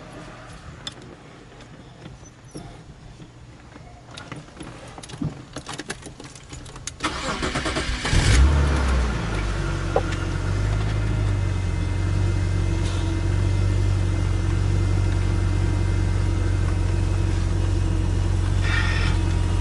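BMW E36 M3 straight-six being started: the starter cranks for about a second, the engine catches with a brief rev about eight seconds in, then settles into a steady idle. Light handling clicks come before it.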